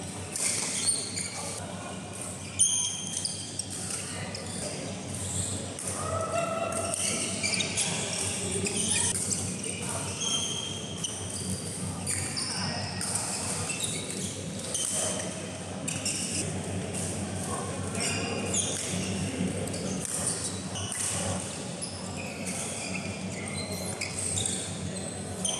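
Badminton play echoing in a large hall: sharp racket hits on the shuttlecock, the loudest about two and a half seconds in, with short squeaks of shoes on the court mat as players move. Background voices are heard throughout.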